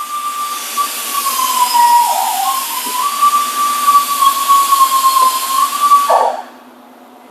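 WD-40 aerosol can spraying penetrating oil in one long burst, a steady hiss with a faint whistle, stopping suddenly about six seconds in.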